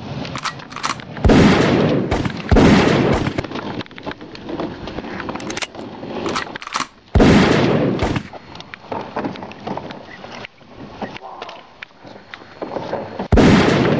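Gunshot sound effects: four loud shots, each trailing off over about a second, with shorter sharp pops between them.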